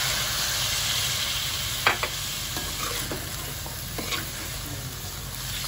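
Potatoes and onion sizzling in hot oil in a pot, loudest in the first second or so and then easing off, with a little water just added. A spoon stirs, knocking and scraping against the pot about six times.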